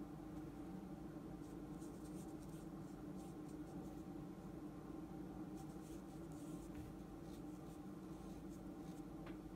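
Faint scratching of a brush pen's tip stroking across chiyogami paper as kana are written, in a few short runs, over a steady low hum.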